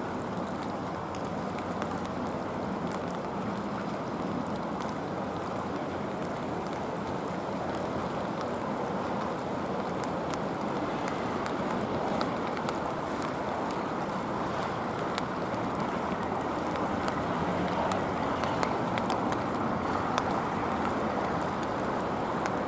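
Steady rushing wind noise on the microphone over harbour water, an even hiss with no engine note or other distinct sound standing out.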